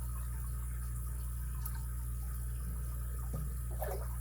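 Steady low hum with a few faint ticks of a pick and tension wrench working the pins of a Schlage SC1 5-pin lock cylinder.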